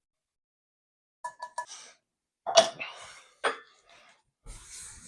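A man coughing and gagging at a foul food smell: three quick short grunts, then two loud coughs about a second apart, followed by a long breathy exhale.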